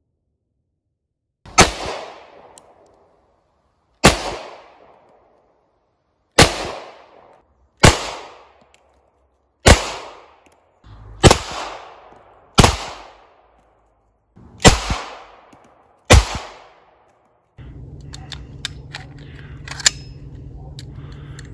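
Nine single shots from Ekol Firat 9mm blank pistols, irregularly spaced about one and a half to two and a half seconds apart, each a sharp crack with a short echoing tail. After the last shot a steady background noise comes in, with a few small clicks.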